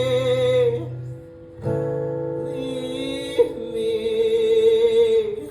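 A woman singing long held notes with vibrato over a strummed acoustic guitar. The sound dips briefly about a second in, then a fresh strum comes in and she sings on.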